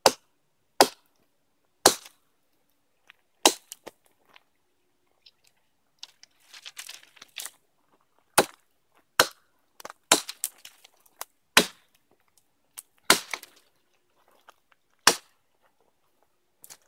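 A light pack axe, a hatchet head on a 19.5-inch handle, chopping into a felled tree trunk: about ten sharp blows at irregular intervals of one to two seconds. A short stretch of rustling and crackling comes between blows in the middle.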